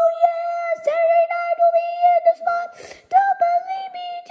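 A child's voice singing a long, high held note with no accompaniment. It breaks off near three seconds in and comes back a little higher.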